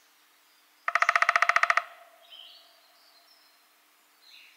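Downy woodpecker drumming: one fast, even roll of strikes lasting about a second, about a second in. Faint high bird chirps follow.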